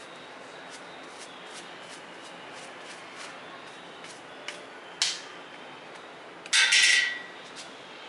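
Stiff plastic-bristled hand brush scrubbing the plush fur of a large teddy bear in short repeated strokes, about two to three a second. One sharper stroke comes about five seconds in, and a longer, louder scratchy burst follows about a second and a half later.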